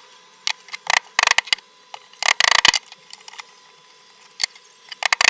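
Wooden strips and a wooden grooving plane being handled and set down on a worktable: short bursts of light wooden clicks and clatter, about a second in, around two and a half seconds, and again near the end.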